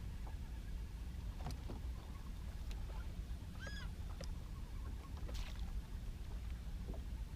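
Steady low rumble of water and wind around a small fishing boat, with a few light knocks and one short squeak about halfway through.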